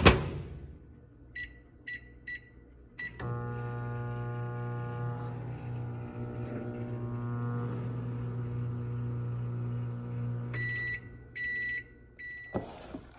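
Magic Chef microwave oven: the door shuts with a sharp knock and three keypad beeps follow. The oven then runs with a steady hum for about seven seconds, stops, and beeps a few times to signal the end of the cycle, and the door is opened with a click near the end.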